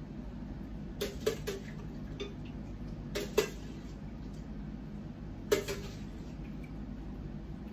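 A metal spoon clinking against a stainless steel pot and blender jar as boiled tomatillos and green chiles are scooped into the blender. There are a few sharp clinks, in small clusters about a second in, around three seconds in, and once more about five and a half seconds in, over a steady low hum.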